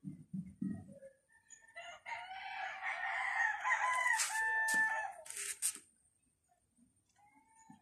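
A rooster crowing once, a drawn-out crow that begins about two seconds in and lasts some three seconds. A few soft thumps come just before it, and short rustles near its end.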